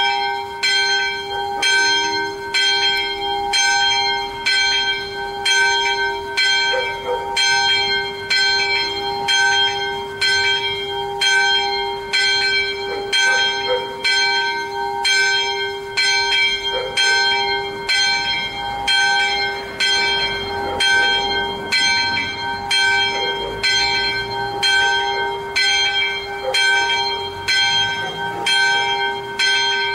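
Small church bell (the "sonello") swinging, its clapper striking about once a second over a steady ringing hum: the call to mass a few minutes before it begins.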